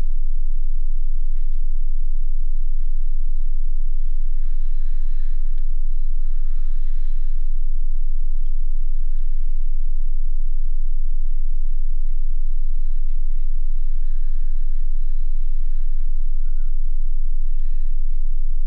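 A loud, steady low hum runs under the whole recording, with faint, indistinct voices at times.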